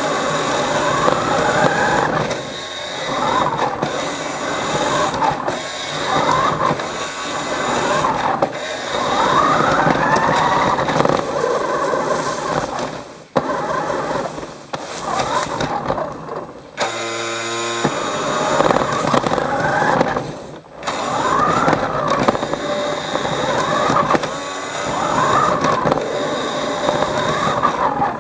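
Toy car driving across a wooden floor, its small electric motor whining up and down in pitch again and again as it speeds up and slows, over a constant rattling rolling noise. About 17 seconds in the rolling stops for about a second while a steady buzzing tone sounds.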